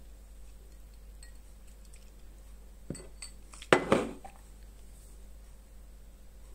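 Light clinks of tableware on a table: a couple of small ticks about three seconds in, then one sharper knock just before four seconds that rings briefly.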